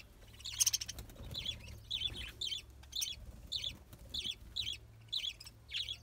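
A flock of budgerigars chirping: short high calls repeating about twice a second, with a louder, harsher burst about half a second in. A steady low hum runs underneath.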